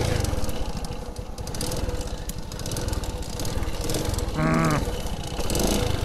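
Motorcycle engine running with a steady, low pulsing note as the bike bogs down in a rice paddy.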